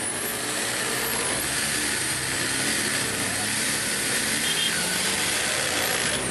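Handheld power drill running steadily, its bit boring into the edge of a painted wooden sign.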